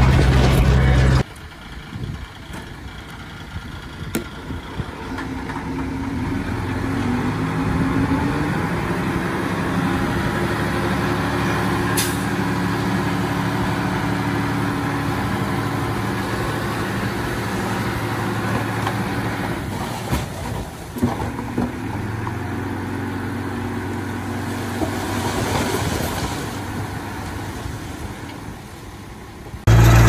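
Komatsu bulldozer's diesel engine running steadily as it works, its engine note stepping up and down now and then. Background music cuts off about a second in and comes back just before the end.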